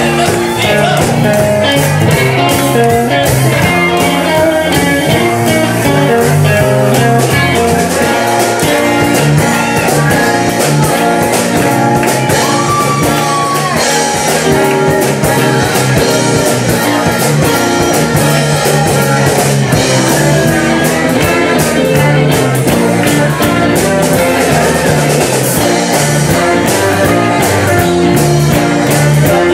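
Live funk-soul band playing a steady groove on electric bass, guitar, keyboards, drums and horns, with some singing.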